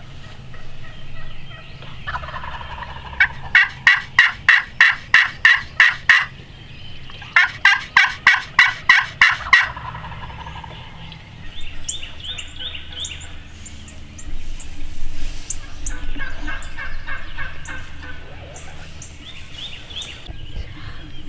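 Turkey yelping: two loud series of about ten evenly spaced notes, about three a second, each series some two to three seconds long, followed by softer calls.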